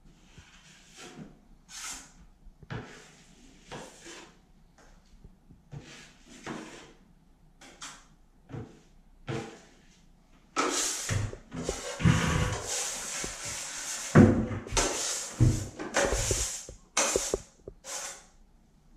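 Metal drywall tools scraping and knocking while working joint compound: short separate scrapes, then from about halfway a longer, louder run of scraping broken by knocks, the sharpest a little after two-thirds in.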